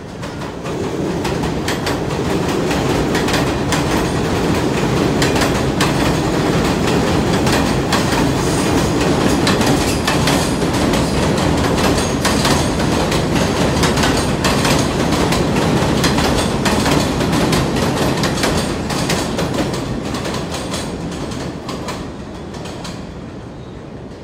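An R46 New York subway train runs through the station on the elevated steel structure's express track without stopping, its wheels clattering over rail joints with a rapid run of clicks. The noise builds as the train arrives, holds loud and steady as the cars pass, and fades over the last few seconds as it pulls away.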